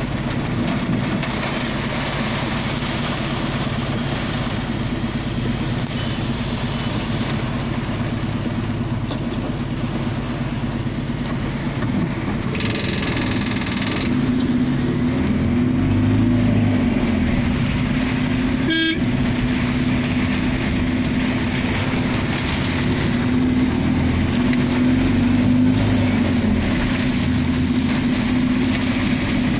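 Heavy rain and a vehicle's engine running steadily, heard from inside the moving vehicle. A horn honks once for about a second and a half midway through, and a short sharp sound follows a few seconds later.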